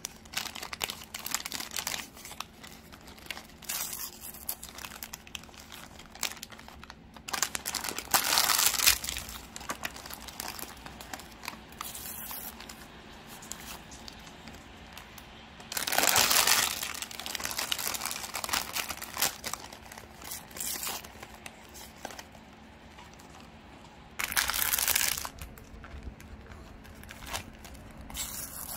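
Thin plastic snack-bread wrappers and a small sticker pouch being handled, crinkled and torn open by hand: irregular crinkling throughout, with several louder bursts of rustling and tearing, the loudest about eight and sixteen seconds in.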